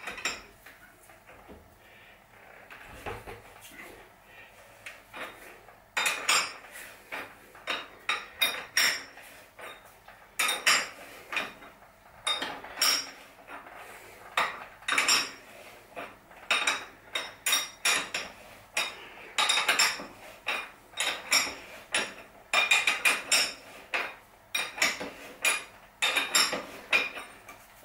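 Metal workshop tools clinking and clanking against each other and on metal, a long run of sharp, irregular knocks that starts about six seconds in, while bottom bracket tools are handled on the bike.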